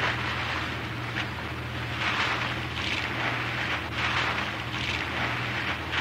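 Steady low drone of towboat engines, with water splashing in repeated surges about once a second as waves break over a barge deck's mooring bitts.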